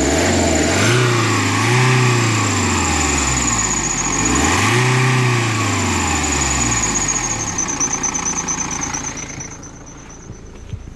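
BMW N47N 2.0-litre four-cylinder turbodiesel revved twice, each rev rising and falling back over about two seconds, then settling to idle. The engine sound grows quieter near the end.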